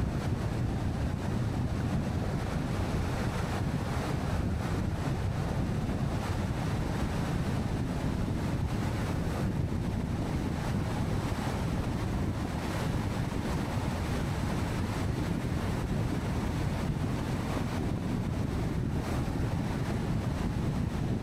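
Steady wind and tyre noise of a car travelling along the highway, a low, even rush that does not change.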